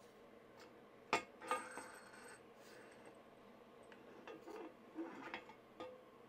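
Metallic clinks and taps as an Evinrude outboard's prop shaft and gear assembly is slid into the lower unit gearcase: a sharp clink about a second in, a second one just after with a short ring, then a few softer taps near the end.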